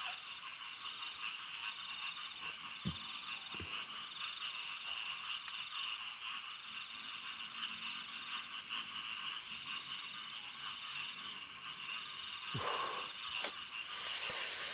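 Night insects, crickets or cicadas, chirring as a steady, finely pulsing high buzz. A few faint knocks come through, then a sharp click about 13 seconds in and a brief rustle near the end.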